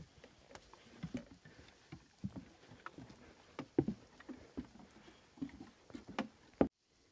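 A hiker's footsteps on a trail: irregular dull thuds about one or two a second, which cut off abruptly near the end.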